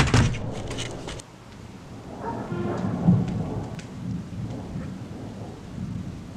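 Thunder rumbling in a thunderstorm with rain falling. The loudest point is at the very start and dies away within about a second; then a quieter, deep rolling rumble swells again about three seconds in.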